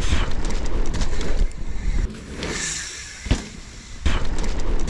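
Mountain bike ridden fast on a dirt trail: a loud, even rolling rumble of tyres and bike. About two seconds in the rumble drops away for a couple of seconds, with one sharp knock in the middle, then comes back loud near the end.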